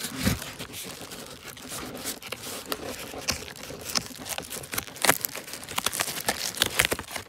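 Cardboard shipping box being opened by hand: its tape, flaps and cardboard packaging rustling and crinkling in a run of irregular sharp crackles.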